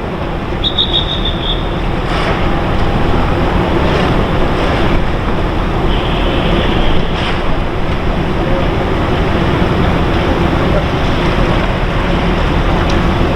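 Steady wind rushing on the microphone at the ship's berth, with two brief high-pitched squeaks or whistles, one near the start and one about halfway through.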